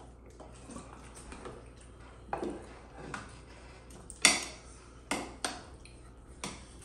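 Cutlery clinking and scraping against plates as people eat, in a handful of scattered knocks, the loudest about four seconds in.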